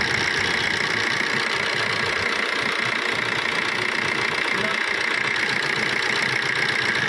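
Maruti Suzuki Swift's engine idling steadily, with no change in speed.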